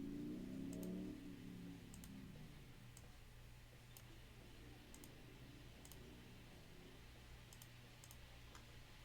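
Near silence with faint, scattered clicks at a computer, about one a second, over a steady low electrical hum; a brief low murmur in the first second or so.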